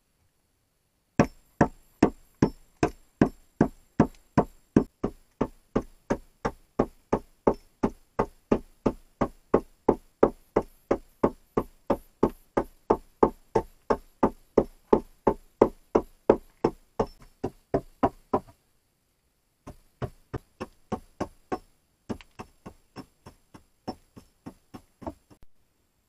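Hammer blows on the log door frame of a dugout, a steady run of sharp knocks at about two to three a second. After a brief stop it resumes in two shorter runs, lighter toward the end.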